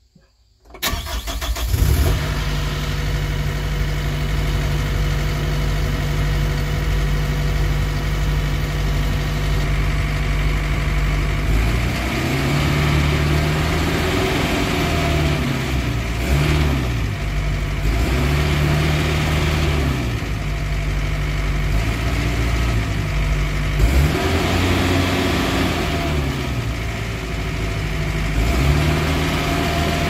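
Kubota ER575K combine harvester's diesel engine starting about a second in and running steadily. From about halfway its speed swings up and down over and over, the pitch rising and falling every couple of seconds.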